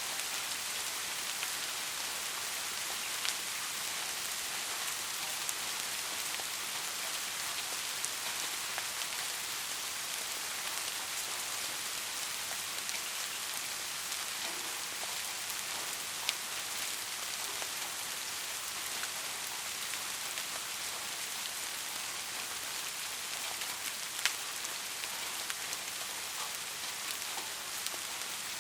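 Soft steady rain: an even hiss of fine drops with scattered individual drop ticks, a few louder ones standing out.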